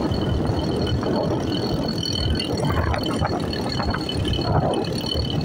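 Motorcycle engine running steadily while the bike is ridden along.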